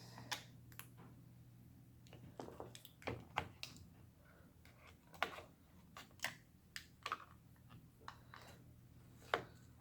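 Irregular light clicks and taps of plastic tools and parts being handled while a glued-in MacBook battery is pried loose from its adhesive, over a faint steady hum.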